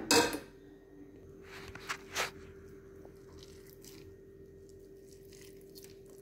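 A hand scooping and squeezing a moist mixture of cooked green gram (mung beans) in a steel pan, making soft squishing and crunching sounds. A brief loud noise at the very start and two sharper sounds about two seconds in stand out over a steady low hum.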